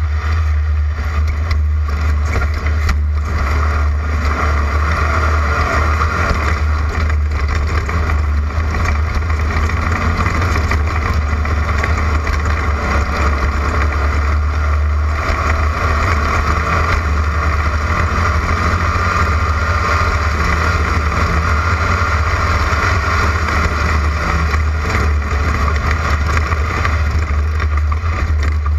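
Air-cooled flat-four engine of a Class 11 VW Beetle off-road race car running steadily, a constant loud drone.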